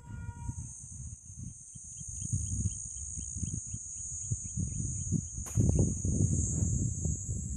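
Insects chirring in a steady high buzz, over an irregular low gusty rumble that swells toward the middle. There is a brief tone right at the start and a sharp click about five and a half seconds in.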